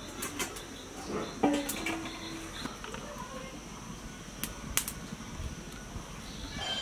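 Light clicks and taps of an aluminium kadai and a plastic oil bottle being handled as mustard oil is poured into the pan, with a brief ring about a second and a half in. A steady faint high whine runs underneath.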